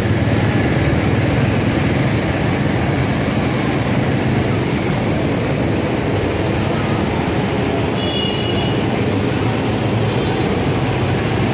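Steady traffic noise of a busy market street: motorcycles, auto-rickshaws and cars running and passing, with a constant low rumble. A brief high-pitched tone sounds about eight seconds in.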